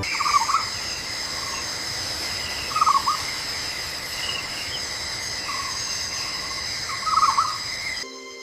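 Night jungle ambience: a steady, high-pitched insect chorus with a short bird call repeated three times, a few seconds apart.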